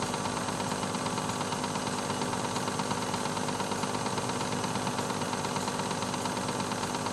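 Film projector running: a steady mechanical whir with a fast, even clatter.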